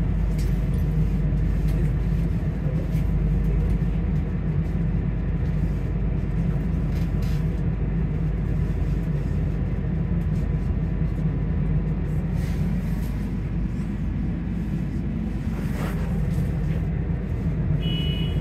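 Volvo B5LH hybrid double-decker bus running, heard from inside the passenger cabin as a steady low rumble. There is a short high beep near the end.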